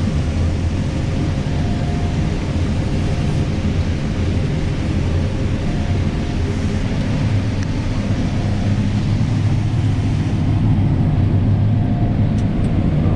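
Combine harvester running steadily while harvesting corn: a constant low drone with faint steady whines over it, swelling slightly about ten seconds in.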